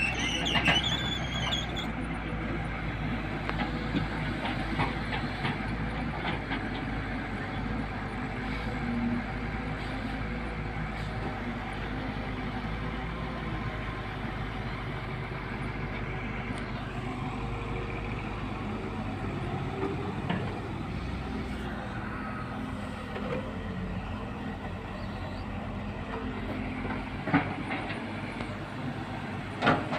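Tata Hitachi EX200LC excavator running steadily, its diesel engine and machinery making a continuous low drone, with a few sharp knocks near the end.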